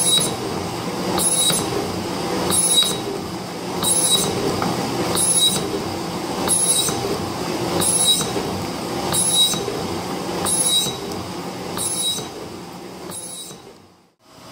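Metal shaper taking a cut on a steel tool holder, its high-speed steel cutter singing with a high squeal on every stroke of the ram, about one stroke every 1.3 seconds, over the machine's steady running. The squeal suggests the cutter may be getting dull. The sound stops abruptly near the end.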